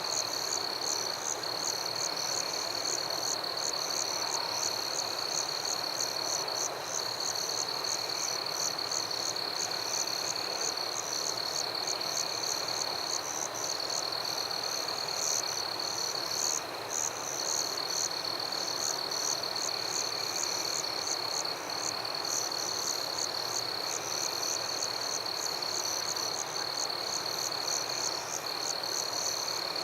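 Night chorus of frogs and insects: a continuous high trill, broken only by brief gaps, with short high chirps repeating steadily over it.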